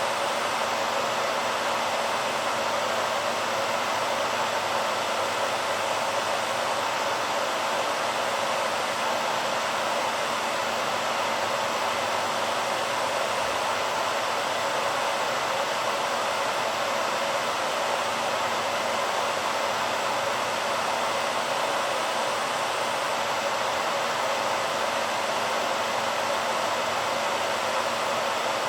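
BaByliss hair dryer running steadily: an even rushing of air with a faint low hum underneath.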